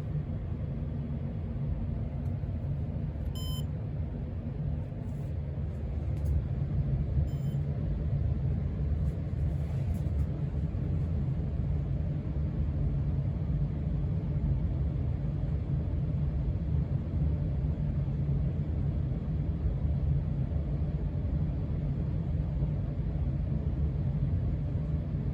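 A steady low rumble that grows a little louder about five seconds in, with two faint short beeps about four seconds apart near the start.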